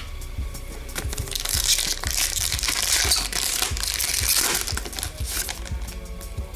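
A trading-card pack wrapper being torn open and crinkled in the hands, with a dense crackle that is loudest through the middle and dies down near the end as the cards are drawn out.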